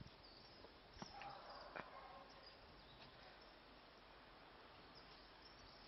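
Near silence: faint background hiss with a couple of soft clicks, about a second in and again just before two seconds.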